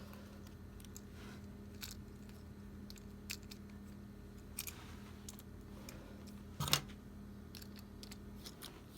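Light scattered clicks and taps of small diecast toy-car wheels and parts being handled and fitted by hand, with one sharper click about two-thirds of the way through, over a steady low electrical hum.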